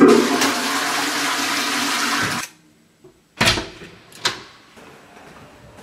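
Toilet with a concealed wall cistern flushing from its push-plate: a loud rush of water that cuts off suddenly after about two and a half seconds. About a second later come two short thumps, a second apart.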